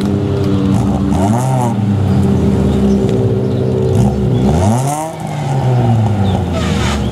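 Rally hatchback's engine running at a steady fast idle and revved up and back down twice, about a second in and again around four to five seconds in, while the car sits stuck in the hairpin.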